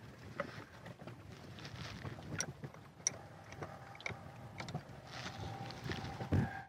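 Light clicks and taps of hand tools and small metal parts being handled on a dismantled outboard motor, over a low, even wash of wind and water. A faint steady tone comes in near the end.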